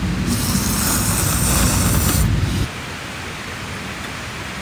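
Noodles being slurped from a metal pot: a long, noisy slurp lasting about two seconds over a low rumble. Then the sound drops suddenly to a quieter steady hiss.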